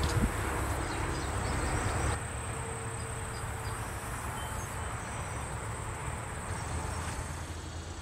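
Outdoor ambience by a summer pond: a faint, steady, high insect trill over a low rumble. The rumble eases a little about two seconds in.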